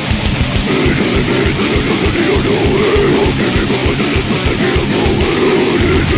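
Death metal song, instrumental passage: heavily distorted electric guitars over fast, dense drumming, with no vocals.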